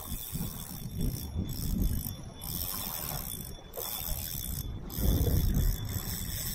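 Spinning reel being cranked while a fish pulls on the line: a high whirring hiss that breaks off briefly about every second, over wind buffeting the microphone.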